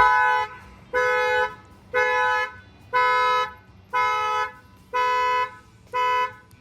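2020 Infiniti Q50's car horn honking seven times, about once a second, each honk about half a second long. This is the factory alarm going off, set off through an add-on shock sensor by a bang on the tire.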